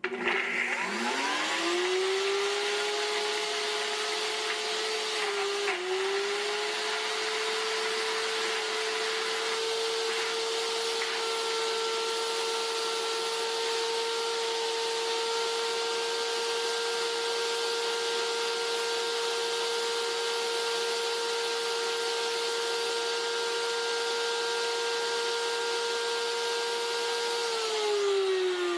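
NutriBullet RX blender motor grinding almonds and oil into almond butter in the short cup. It spins up with a quickly rising whine, runs at a steady high whine with a brief dip about six seconds in, and winds down with falling pitch near the end.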